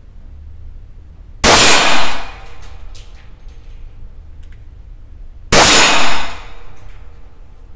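Two shots from a Taurus TX-22 .22 LR pistol firing standard-velocity rounds through a shortened modular suppressor (only its first and last stages fitted), about four seconds apart, each loud report ringing on for most of a second. The shooter finds this short suppressor not very effective.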